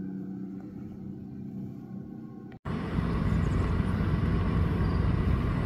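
Steady hum of a ride-on greens mower's engine, cut off abruptly about two and a half seconds in. A louder, even low rumble follows.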